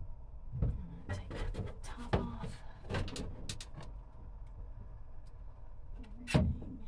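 Knocks, clacks and light scrapes as the cover board is worked loose and lifted out of the camper's battery compartment. Several separate knocks in the first few seconds, with the loudest thump a little after six seconds in.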